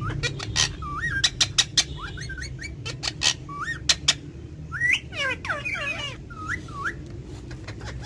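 Indian ringneck parakeets calling: short rising whistled chirps mixed with sharp, clipped squawks, and a quick run of falling calls about five seconds in.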